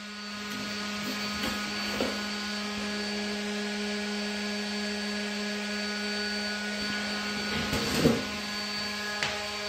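Steady machine hum: a low, even drone with higher overtones, with a few light handling knocks, one about two seconds in and a short one about eight seconds in.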